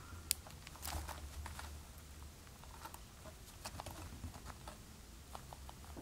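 Swallows moving in a nest of young and adult birds: faint scattered clicks and rustles with a sharp click about a third of a second in, over a low hum.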